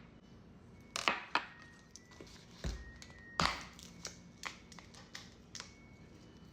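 Close-miked eating of chicken salad: an irregular series of sharp clicks and taps, the loudest about a second in and about three and a half seconds in.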